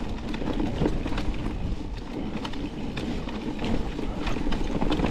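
Electric mountain bike being ridden along a dirt trail: tyres rolling over the ground with frequent clicks and rattles from the bike, a steady low hum, and wind on the microphone.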